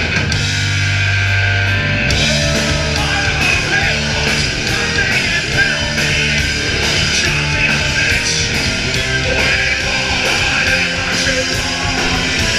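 Live heavy rock band playing loud: electric guitar, bass and drums, with a singer's voice over them. A held low note opens it, and the drums come in with steady cymbal hits about two seconds in.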